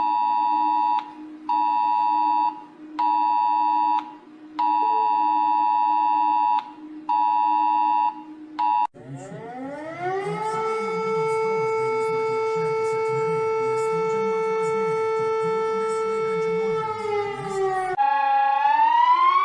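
Emergency alert sounds. First, Romania's alert: two high tones sounding together in irregular on-off pulses over a low steady tone. About nine seconds in, Lithuania's alarm siren rises in pitch, holds a steady wail over a low warbling layer, and falls away near the end, just before a new siren tone starts sliding up and down.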